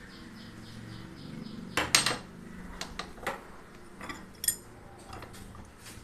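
A wrench clinking and knocking against the metal tap valve as it is tightened into the faucet: a few sharp metal clicks, the loudest about two seconds in.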